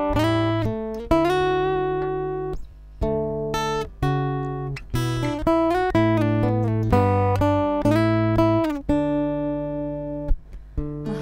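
A recorded guitar track played back with its compressor switched off: picked notes and chords ringing out, the level jumping between loud attacks and much quieter stretches.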